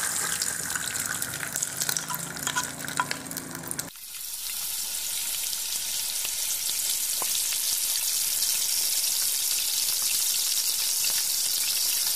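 Beaten egg sizzling in hot oil in a small steel toy wok over a paraffin burner: a steady hiss with scattered crackles. About four seconds in, the sound changes abruptly to a smoother, brighter sizzle.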